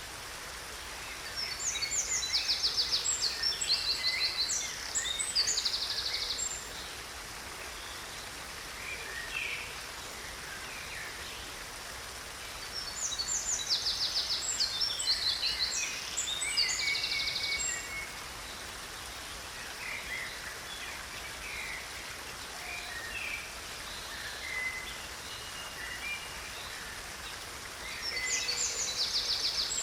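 Songbird singing in three bouts of rapid, high trilled and chirping phrases, over the steady rushing of a small stream.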